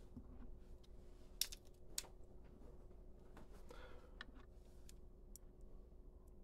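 Quiet handling sounds of small hand tools: two sharp clicks about a second and a half and two seconds in, with a few lighter ticks and a soft rustle near the middle, as a utility knife is put down and a screwdriver picked up.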